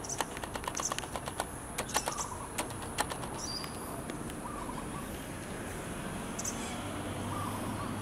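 Outdoor bird ambience: faint, short, high-pitched bird chirps here and there over a steady background hiss, with a quick run of sharp clicks during the first three seconds.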